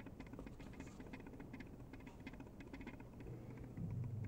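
Faint scratchy clicking and rubbing: handling noise of fingers squeezing and flexing a thin-walled nylon 3D-printed vase. A low hum comes in near the end.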